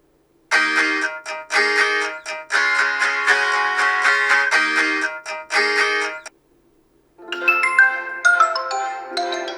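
OnePlus Nord N10 5G ringtones playing: a melody of short, repeated phrases of notes starts about half a second in and stops a little after six seconds. After a second of silence, a different ringtone melody begins.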